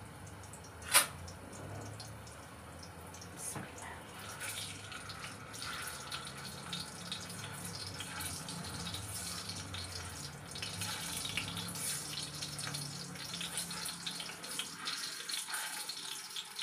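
A single spinach kofta frying in shallow hot oil in a nonstick wok: a steady sizzle with small pops and crackles that grow busier after a few seconds. A sharp click sounds about a second in.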